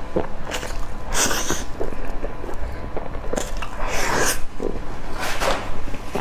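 Close-miked eating sounds: wet chewing and biting with mouth clicks, and three short airy hisses about one, four and five and a half seconds in.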